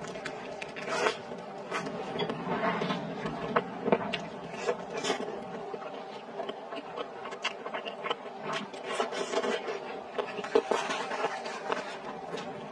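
Close-miked chewing and lip smacking while eating skewered fish in spicy sauce: a steady run of irregular clicks and smacks from the mouth.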